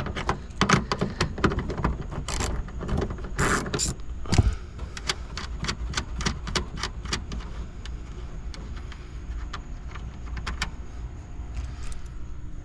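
Ratchet wrench with a 10 mm socket clicking as the taillight nuts are loosened, with a few louder knocks in the first few seconds and then runs of quick clicks.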